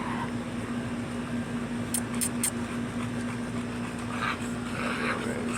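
Steady low mechanical hum over an even background noise, with three short, sharp high ticks about two seconds in.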